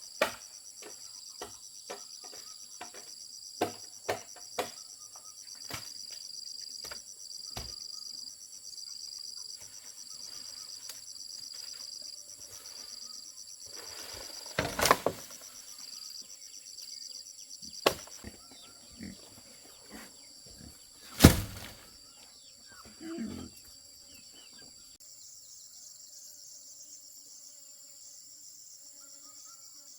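Crickets trilling steadily in a high, pulsing chirp, with scattered clicks and knocks throughout; two louder, sharp knocks stand out about halfway through and again some six seconds later.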